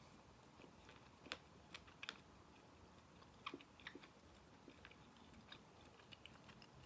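Faint chewing with small wet mouth clicks, a few louder ticks scattered through, from a person eating squid.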